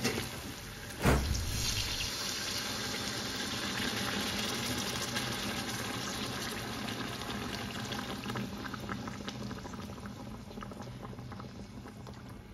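Water pouring in a steady stream into a hot wok of fried vegetables, with a sudden loud burst about a second in as it first hits the hot oil. The pour then runs on steadily with bubbling and fades toward the end.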